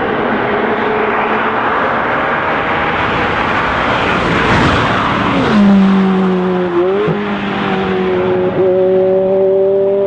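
Race car engines running at speed as the cars pass close by: a loud rush that builds to a peak about four to five seconds in, then the pitch drops sharply as a car goes past. It settles into a steady engine note with a brief dip near the end.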